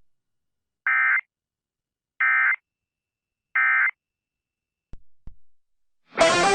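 Emergency Alert System end-of-message data tones: three identical short bursts of warbling digital tone, each under half a second and about a second and a half apart, closing the relayed severe thunderstorm warning. Two faint clicks follow, and music starts just before the end.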